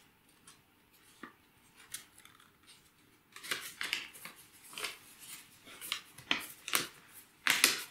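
Paper rustling and crinkling in the hands as a glued paper leaf is pressed and wrapped around a rolled-paper stem: short crisp rustles starting about three seconds in, the loudest near the end.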